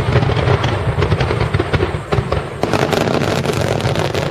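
Fireworks finale barrage: a dense, continuous volley of shell bursts and crackling that starts suddenly. There is a brief lull about two seconds in, then it surges again.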